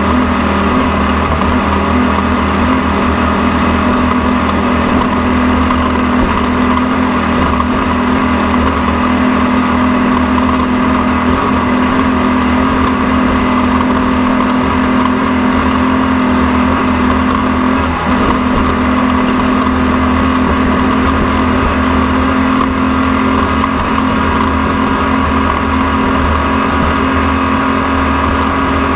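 A motor running at a steady speed, a constant loud drone with a low hum.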